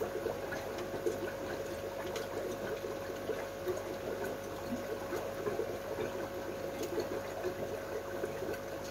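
Water trickling and bubbling steadily from running aquarium filters and aeration, with a steady hum underneath and a few light clicks of plastic parts being handled.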